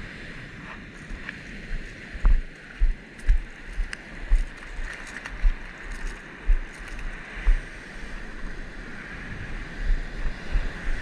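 Surf washing onto the beach as a steady hiss, with wind on the microphone and a series of low thumps, roughly one or two a second, between about two and eight seconds in.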